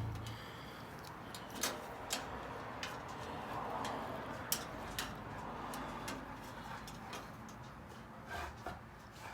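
Scattered light clicks and taps, irregular and a second or so apart, from hands working with small tools and wire connectors.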